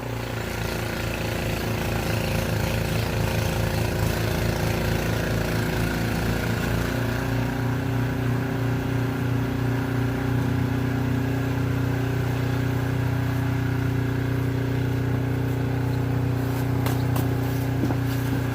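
Gas snowblower engine running steadily while clearing snow. Its note shifts slightly about seven seconds in and again about ten seconds in, and there are a few faint clicks near the end.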